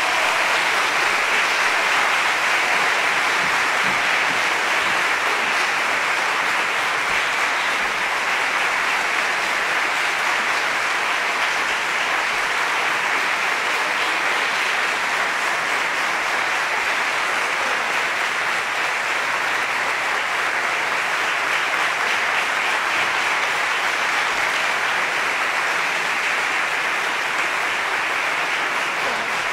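Sustained audience applause: a dense, even clapping that holds steady without music or voices.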